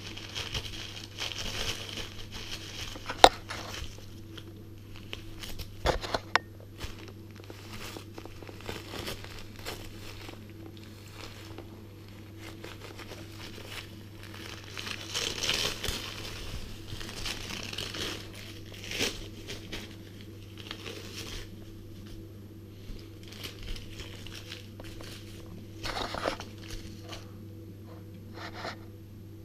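A small terrier tearing and crumpling paper with its teeth: irregular crinkling and ripping, with a few sharp clicks.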